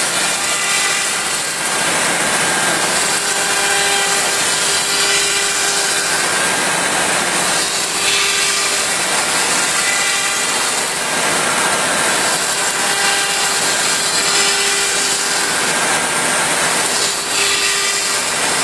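M1325ATH CNC wood router's spindle cutting wood: a steady, loud whine and hiss of the cutter. Its tone comes and goes every few seconds as the load on the cut changes.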